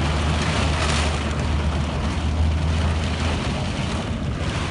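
Car cabin noise while driving through deep floodwater in rain: a steady low rumble of the engine under a continuous hiss and wash of water.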